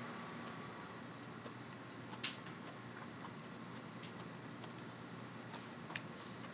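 Quiet room tone with a few light clicks and taps of tableware, the sharpest about two seconds in.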